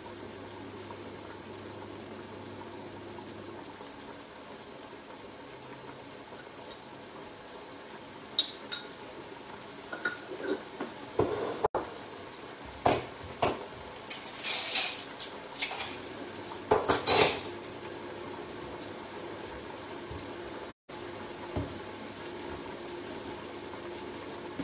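Crockery and cutlery clattering: a few light clinks about a third of the way in, then a run of louder clinks and clanks through the middle that stops about three-quarters through. Under it, a low steady hiss from pans cooking on the stove.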